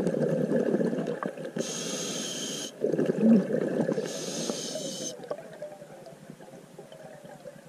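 Scuba diver breathing through a regulator underwater: a low bubbling rumble of exhaled air, then a high hiss of the regulator on the inhale, twice over. After about five seconds it dies down to a faint rumble.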